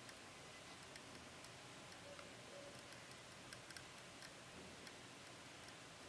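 Near silence: faint room hiss with a few faint, scattered ticks.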